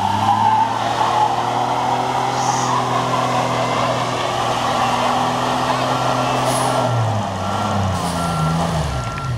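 Chevy S10 pickup's engine revving high and held steady under heavy load while towing a loaded flatbed trailer, easing off about seven seconds in and revving up again before the end. A reversing alarm beeps at an even pace from about six seconds in.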